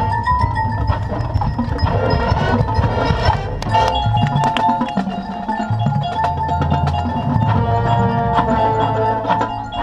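Drum and bugle corps show music: held chords over a busy front ensemble of marimba, xylophone and glockenspiel, with drum strikes.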